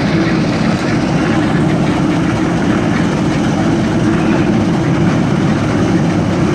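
Portable drum concrete mixer running steadily, a loud continuous engine noise.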